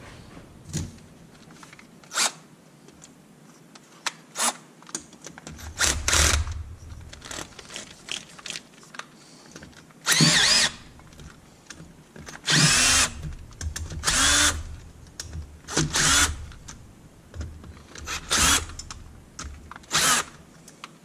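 A cordless drill/driver runs in short bursts of under a second each, about nine times, on the bolts of an aluminium transmission case cover. Small metallic clicks come between the runs.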